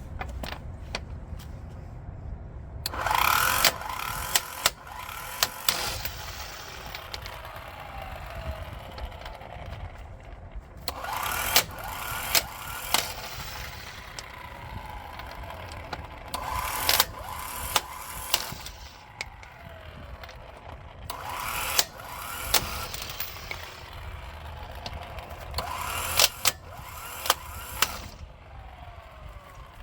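12-volt cordless impact wrench hammering lug nuts loose in five short bursts a few seconds apart, with sharp clicks, over a steady low rumble.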